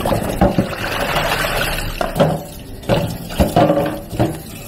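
Tap water running into a bowl of water in a steel sink as hands swish and rinse small squid, with a few short knocks as they are handled. The water is strongest for the first two seconds, then eases.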